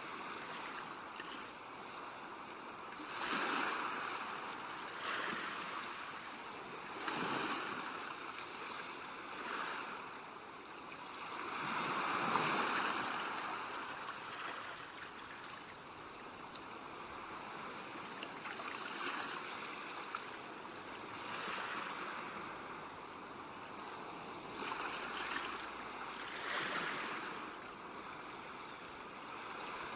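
Ocean waves breaking on shore: a continuous wash of surf that swells and falls every few seconds, the largest swell about twelve seconds in.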